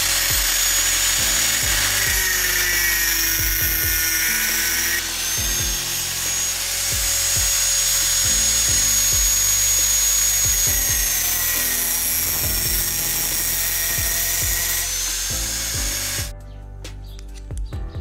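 Electric angle grinder with a thin cut-off disc running at speed and cutting into a small metal tube: a loud, steady, high whine that dips slightly in pitch about eleven seconds in, then stops suddenly about sixteen seconds in.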